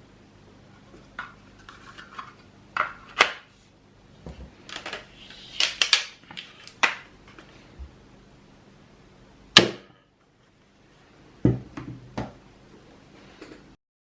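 Handling of a 3D-printed plastic crossbow: scattered clicks and knocks of plastic parts, with one sharp snap, the loudest sound, near the middle.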